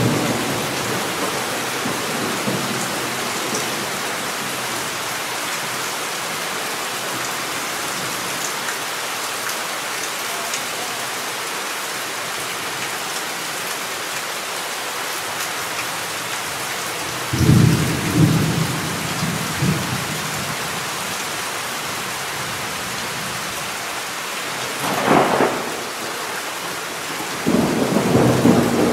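Steady rain hissing throughout, with thunder: the tail of a rumble fading at the very start, a rolling rumble a little past halfway, a sharper clap a few seconds later, and another rumble building near the end.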